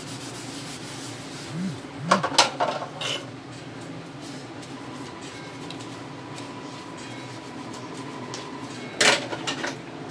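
Kitchenware clinking: a quick cluster of sharp knocks about two seconds in and another hard knock near the end, over a steady background hum.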